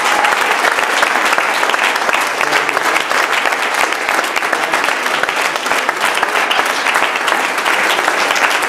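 Audience applauding: many people clapping together, steady and sustained.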